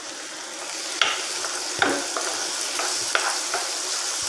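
Chopped onion, curry leaves and tomato frying in hot oil in a pan, a steady sizzle that grows stronger about a second in, while being stirred: a stirring utensil knocks and scrapes against the pan several times.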